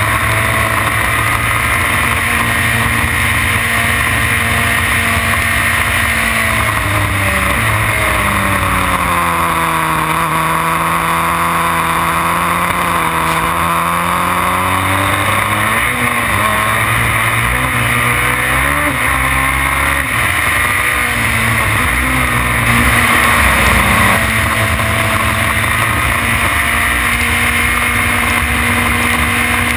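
Formula BMW single-seater's 1.2-litre four-cylinder engine, heard onboard at high revs. About a third of the way in the revs drop through downshifts into a corner and stay low for a few seconds, then climb back in steps through the gears to a steady high note. A steady rush of wind and spray runs underneath.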